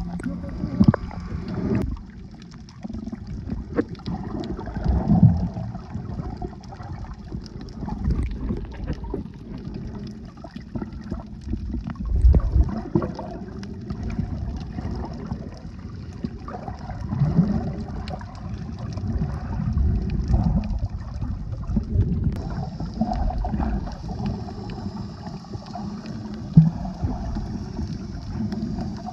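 Muffled, low water sloshing and gurgling picked up by a camera held underwater, swelling and fading every few seconds, with a faint steady high hiss.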